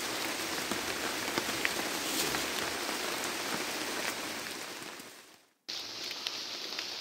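Rain falling steadily on rainforest foliage: an even hiss with scattered drop ticks. It fades away about five seconds in, and after a short silence comes back.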